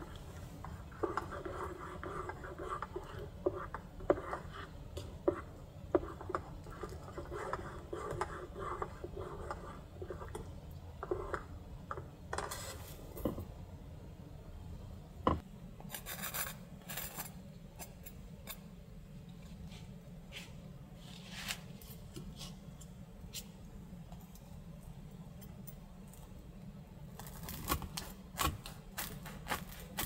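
Kitchen utensils scraping, rubbing and clinking as food is prepared, with a steady low rumble underneath. The scraping is busiest in the first dozen seconds, and a run of sharp clicks comes near the end.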